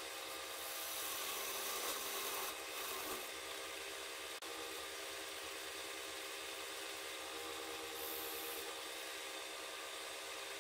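Wood lathe running steadily with a turned wooden workpiece spinning on it. From about a second in to just past three seconds, something rubs against the spinning wood and the sound swells, and there is a brief click just after four seconds in.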